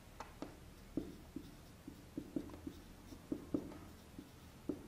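Marker pen writing on a whiteboard: a faint run of short, irregular taps and scratches as letters are written.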